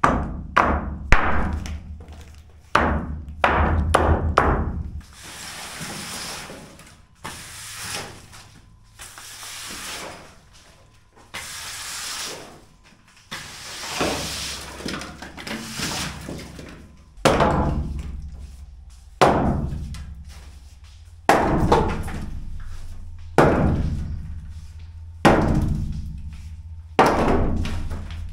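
Hammer blows knocking apart wooden bracing and studs. There is a quick run of strikes at first, then a stretch of rougher noise, then heavy blows about every two seconds.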